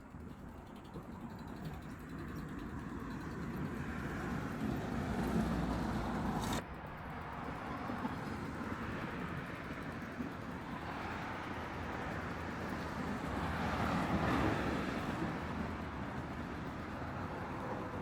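Cars passing on a road: a swell of tyre and engine noise that builds to a peak and cuts off suddenly about six and a half seconds in, then a second car rising and fading about fourteen seconds in.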